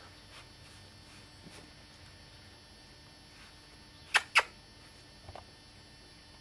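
Golden retriever puppy with its nose down in snow, sniffing and snorting: two sharp quick snorts about four seconds in, a fainter pair a second later, over soft rustling.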